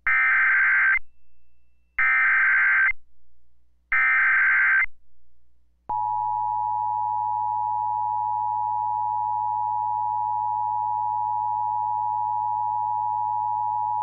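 NOAA Weather Radio Emergency Alert System signal: three one-second bursts of SAME header data, warbling digital tones about two seconds apart, then about six seconds in the steady 1050 Hz warning alarm tone, the attention signal that a tornado warning broadcast follows.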